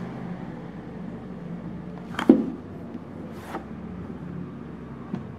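Cardboard product box being handled: a sharp tap a little over two seconds in, a softer brushing stroke about a second later, and a faint tick near the end, over a steady low hum.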